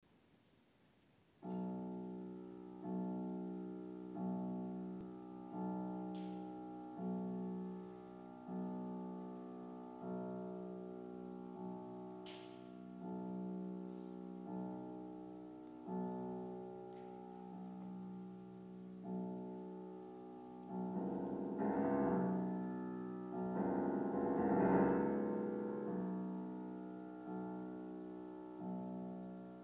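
Grand piano playing a slow opening: a chord struck about every one and a half seconds, each ringing and fading before the next, starting about a second and a half in. Around twenty to twenty-five seconds in the sound grows fuller and busier, then returns to the repeated chords.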